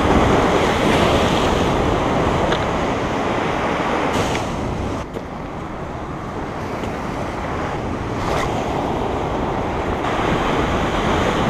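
Rough ocean surf breaking and washing against the boulders of a rock wall, a loud steady rush, with wind buffeting the microphone. A few faint clicks sit on top of it.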